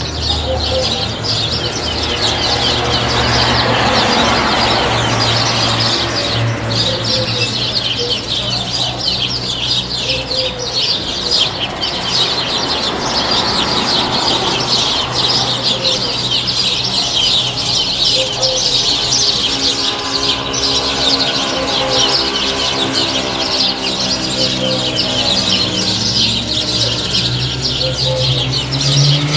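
Many small birds chirping in a dense, continuous chorus over a steady low hum. Near the end a low engine-like pitch starts to rise.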